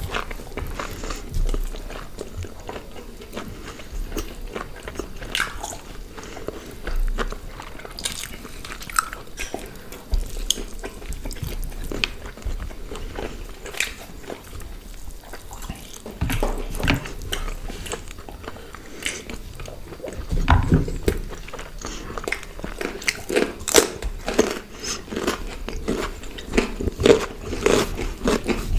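Close-up eating sounds: two people biting, tearing and chewing grilled chicken and paratha, with irregular wet smacks and crunches that grow denser and louder toward the end.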